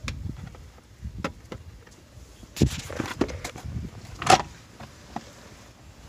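Plastic lower steering-column trim on a Honda Odyssey being worked loose by hand: a scattering of sharp clicks and knocks as the cover's clips release, with the loudest snap about four seconds in.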